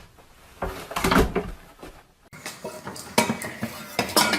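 Clattering and sharp knocks of hard objects, in a few short clusters, with an abrupt change of recording about halfway through.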